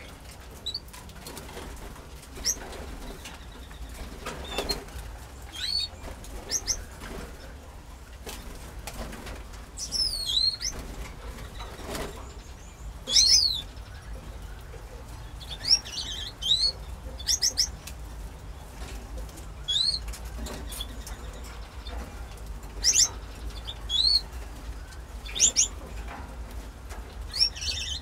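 Canaries in an aviary give short, high chirping calls that sweep in pitch, singly or in quick pairs, scattered every second or two. A steady low hum runs underneath.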